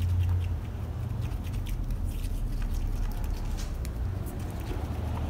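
A wooden stir stick scraping and clicking against the sides and bottom of a small plastic cup of epoxy resin as it is stirred, in quick irregular small clicks, over a low hum that eases about half a second in.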